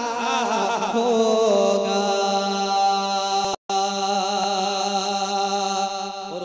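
A man's unaccompanied voice singing a long drawn-out note in a devotional manqabat recitation, wavering at first and then held steady. The sound cuts out for an instant about three and a half seconds in.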